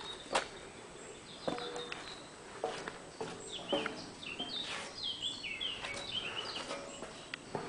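Birds chirping, with a run of short falling chirps in the middle, over the footsteps of someone walking along a gravelly path, about one step a second.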